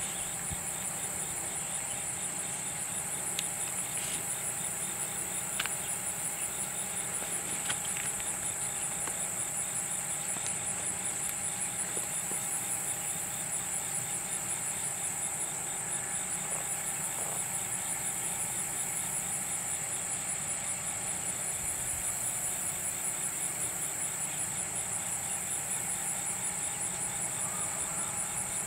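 Steady chorus of insects trilling: a high-pitched, rapidly pulsing drone, with a few faint clicks in the first eight seconds.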